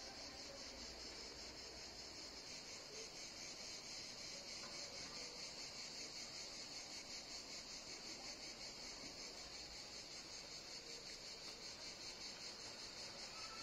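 Faint, steady high-pitched trill of insects, an unbroken chorus that holds the same pitch throughout.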